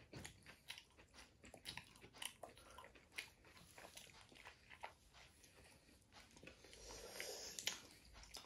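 Faint, quick chewing and biting of an aloo tikki burger, a steady scatter of small crunchy, wet mouth clicks.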